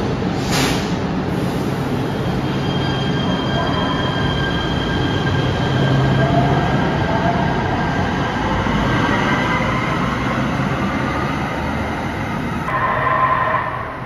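LA Metro Kinkisharyo P3010 light rail train pulling out of an underground station: a steady rumble under high whining tones that rise in pitch as it gathers speed past the platform. About a second before the end the sound changes abruptly to a second train approaching through a tunnel.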